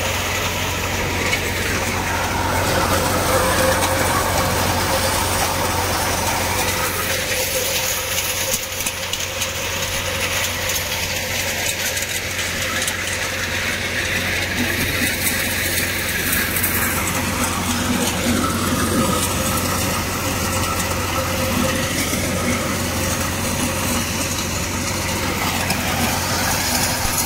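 Tractor-powered multi-crop thresher running steadily while threshing maize: a constant engine drone with even machine noise over it.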